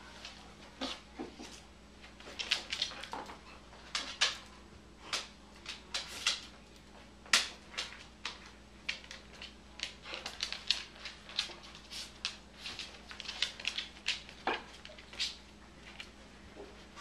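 Irregular sharp clicks and taps, sometimes several close together, from a corgi moving about on a hardwood floor and a bath mat.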